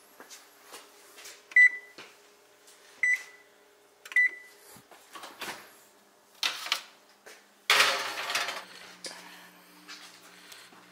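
Electric range's control panel beeping three times as its keys are pressed, with small clicks between. Then a loud metallic clatter and scrape from the open oven and its wire racks, over a faint steady hum.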